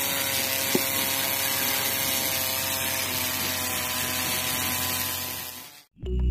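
Small DC motor on a toy tractor running steadily with a whine, belt-driving a miniature water pump, with water gushing and splashing from the outlet pipe. The sound fades out near the end.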